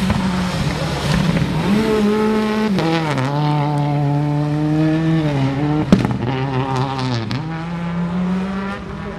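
Rally car engine revving hard on a gravel stage, its pitch climbing and dropping several times with gear changes and lifts as the car slides past, with a single sharp bang about six seconds in. The engine fades as the car draws away near the end.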